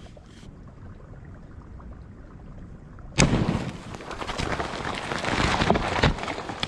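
A 2-pound charge of Tannerite binary exploding target detonated by a rifle bullet: one sharp, loud blast about three seconds in, followed by about three seconds of crackling noise as thrown mud and debris come down.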